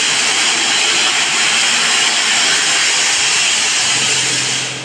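The Flying Scotsman steam locomotive venting steam while standing: a loud, steady hiss that cuts off sharply near the end.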